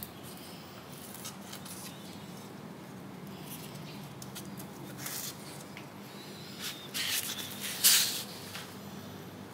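A few short scrapes, rustles and clicks, the loudest just before the end, over a steady low hum.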